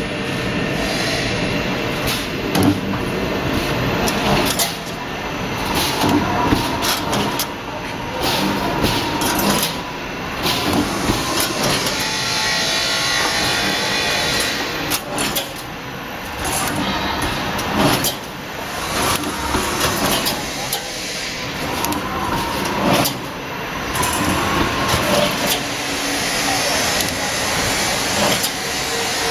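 Rebar mesh welding machine running, with steady machine noise broken by irregular sharp clicks and clanks.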